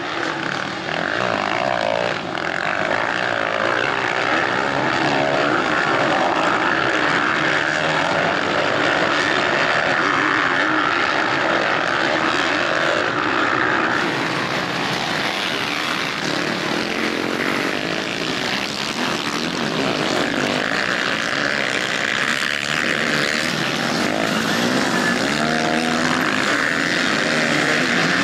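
Motocross bike engines racing, their revs rising and falling in a continuous buzz. The sound changes abruptly about halfway through.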